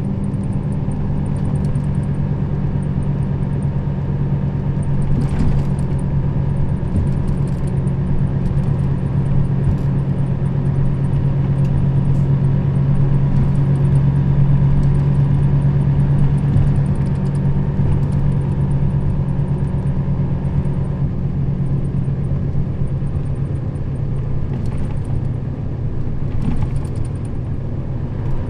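Nissan Diesel KL-RA552RBN route bus's diesel engine running under way, a steady low drone. It grows a little louder toward the middle and eases off later, with faint rattles and ticks over it.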